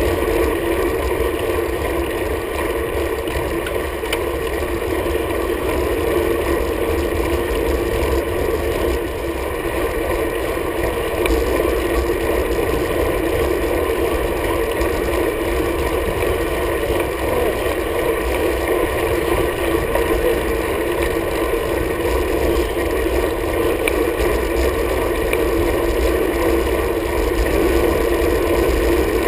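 Steady rush of wind and road noise from a road bike in motion, picked up by a camera mounted on its handlebar.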